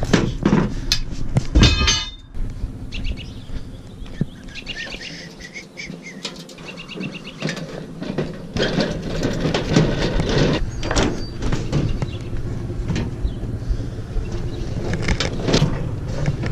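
Scattered knocks and a short rattle, then birds chirping for a few seconds, then more knocks and clatter over a low steady hum.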